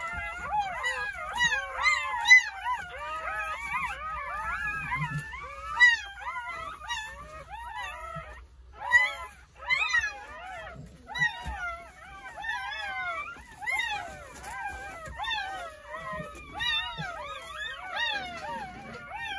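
Newborn Jindo puppies crying: several high, wavering squeals overlapping almost without pause, with a short lull about eight and a half seconds in.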